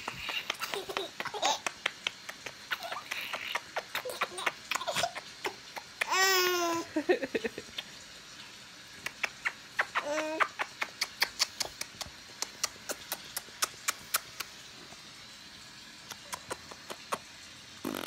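A baby laughing in high squeals, with the longest squealing laugh about six seconds in and a shorter one around ten seconds. After that comes a run of short sharp clicks, about three a second, that stops near the end.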